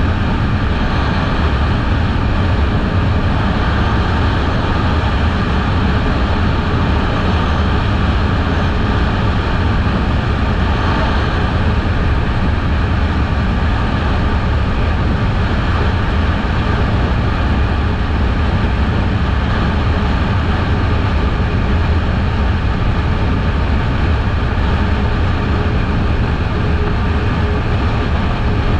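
Kawasaki Eliminator 500's parallel-twin engine running steadily at cruising speed, heard under heavy wind rush on the microphone.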